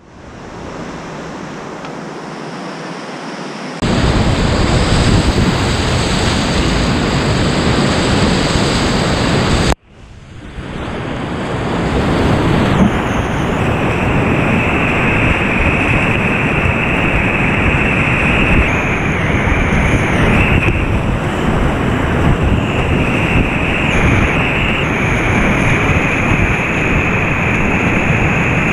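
Whitewater rapids on a mountain river, a steady loud rush of water heard close up from a kayak. The noise steps up suddenly about four seconds in and cuts out for a moment near ten seconds before fading back in.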